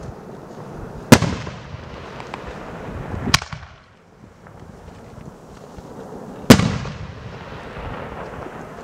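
"Korsary" multi-shot firework cake going off: three sharp bangs a few seconds apart, the first and last the loudest, each followed by a noisy fading tail.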